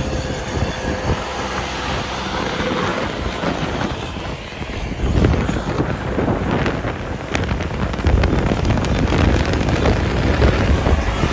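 Wind buffeting the microphone over the low rumble of a moving vehicle, with no clear engine note or rhythm.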